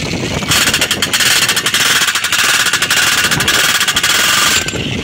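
Electric demolition hammer running with its chisel bit against an angle grinder's clamping nut, a rapid hammering that starts about half a second in and stops shortly before the end. The blows are used to knock loose the nut holding the grinder's diamond cutting disc.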